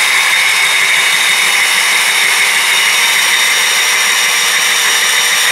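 Cordless drill running steadily with a hole-saw bit grinding into glazed ceramic kept wet with water: a constant high whine over a gritty grinding hiss, as the tilted bit is brought upright into the scored groove.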